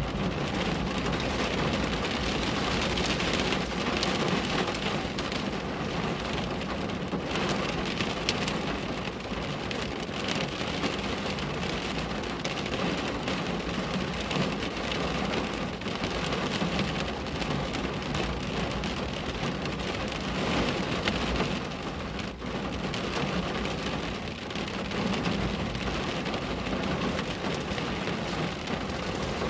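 Steady rain pattering on a window: a dense, even hiss of many drops with individual taps standing out, swelling and easing a little every few seconds.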